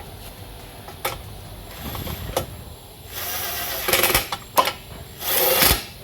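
Cordless power tool running in two short bursts, about a second each, driving a tow hitch mounting bolt, with a few light knocks of tool handling before.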